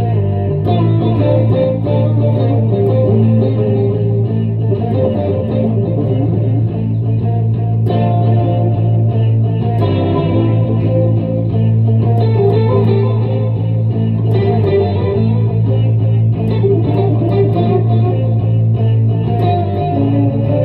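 Tokai fretless electric bass played with the fingers through a looper: a looped low part holds a steady low note while higher melody notes are plucked over it.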